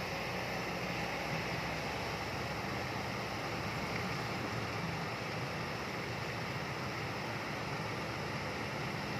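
Kobelco excavator's diesel engine running steadily, a constant low hum under an even rushing noise.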